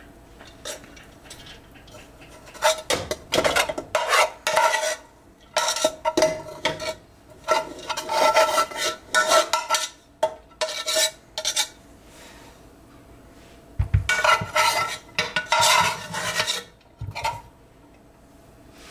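A metal spoon scrapes and clinks against a metal pot in irregular bursts of a second or so, scooping cooked rice to spread as the last layer of a pulao. The pot rings faintly under the scraping, and there is a single dull knock near the middle.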